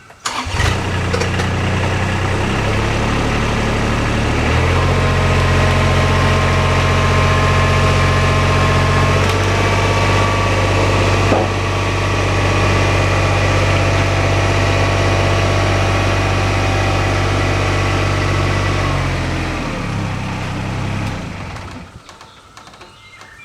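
Kubota diesel engine starting abruptly and running for about twenty seconds, its speed stepping up and down a few times as it pulls a sawmill carriage on a strap, then shutting off near the end. One sharp clack is heard about halfway through.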